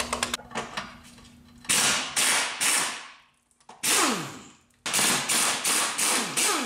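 Impact wrench hammering in three bursts as it loosens the 16 mm nuts holding a lower control arm to its ball joint, its pitch falling as it spins down after each burst.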